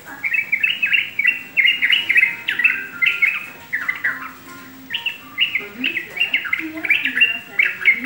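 Caged yellow-vented bulbul (trucukan) singing in quick runs of bright chirping notes, with a short pause about halfway through.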